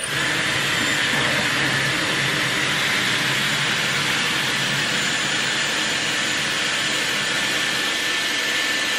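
Dyson Airwrap hair styler with its curling barrel switched on and blowing air steadily: an even rush of air with a faint high motor whine over it.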